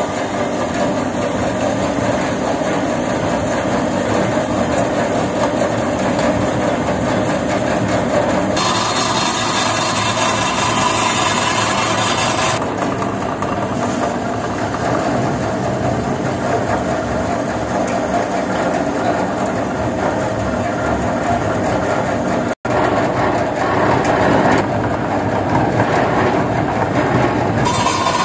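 Non-woven fabric roll cutting machine running steadily, its motors turning the fabric roll and driving the cutting blade. For about four seconds, roughly a third of the way in, a sharper hiss joins the running sound.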